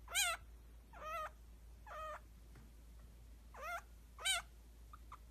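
Baby chinchilla crying: five short, high-pitched calls, each rising and then falling in pitch, a second or so apart. The owner takes the crying not for fear but for the baby calling to the older chinchilla as if to its mother.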